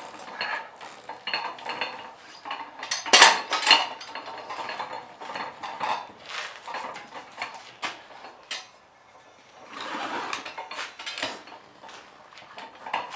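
Steel parts of a manual tire changer clanking and scraping as it is worked to break a tire's bead: irregular metal knocks and clinks, loudest in a cluster about three seconds in.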